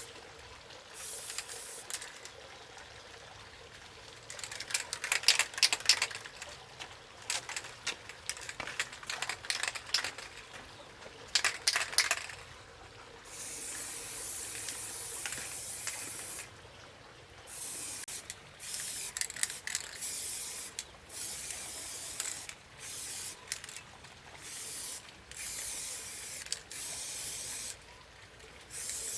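A run of sharp clicks and knocks, then a steady high hiss that comes in bursts of one to three seconds, each starting and stopping abruptly.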